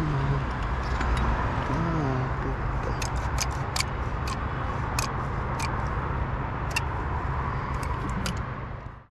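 Steady rumble of city traffic heard from high on a building, with a run of light, sharp clicks through the middle. The sound fades out just before the end.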